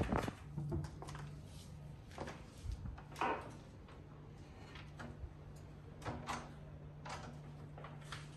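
Scattered soft knocks, clicks and steps from a door and someone walking into a room, over a steady low hum. The loudest knock comes about three seconds in.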